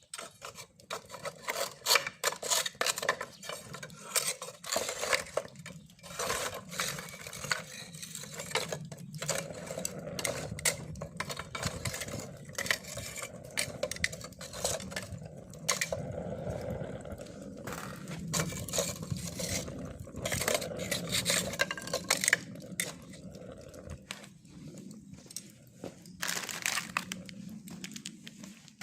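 Irregular clinks, knocks and scrapes of lumps of charcoal being handled in a small Japanese charcoal grill, over a low steady hum through the middle.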